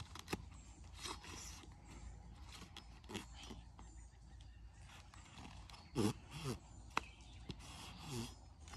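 Machete blade scraping down a dry, spongy, half-rotten stick in faint, irregular strokes, shaving off fine fuzz for fire tinder. A short vocal sound comes about six seconds in.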